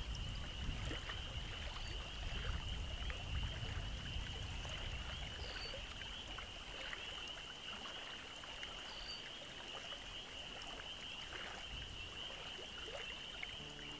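Quiet evening ambience beside a small meadow spring creek: a low rush of water and wind that eases off about halfway, under a steady high-pitched trilling chorus that runs throughout, with a few faint bird chirps.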